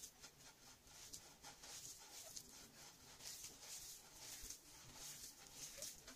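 Faint, irregular gritty rustling and scraping as a hand rubs and works a crumbly, sandy biscuit-dough mixture against a glazed clay bowl.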